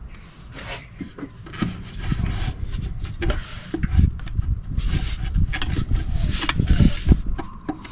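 Irregular rubbing, scraping and knocking of metal parts in a car's engine bay during an alternator swap, getting louder about two seconds in.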